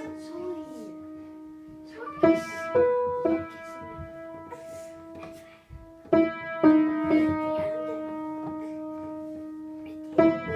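Piano playing slow chords, each struck and left to ring for a second or more before the next, in an instrumental passage between sung lines.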